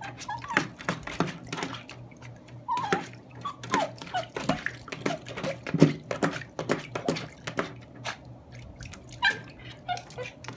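Yorkshire terrier splashing and pawing in shallow water in a plastic wading pool, with irregular slaps, drips and small knocks of water.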